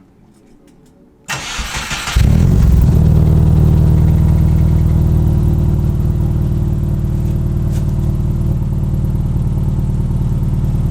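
A naturally aspirated Subaru Forester flat-four engine, breathing through a newly fitted Impreza WRX cat-back exhaust, is cranked by the starter about a second in, catches, and settles into a loud, steady idle. The idle sounds loud, but the owner finds an exhaust leak at the new exhaust's joint.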